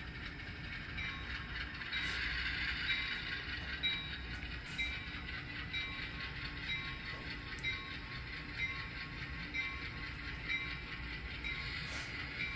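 Sound-equipped HO scale Atlas Gold ALCO RS3 model diesel running under power, its decoder playing a diesel engine rumble with a short ding repeating about once a second, the locomotive bell rung for a shoving move. The whir of the model's motor and gears and a few sharp clicks from the wheels on the track run underneath.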